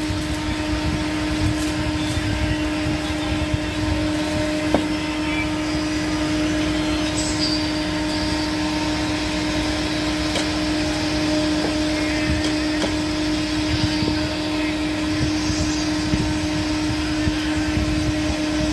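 A steady mechanical hum with a constant droning tone over low rumbling background noise, and a single faint click about five seconds in.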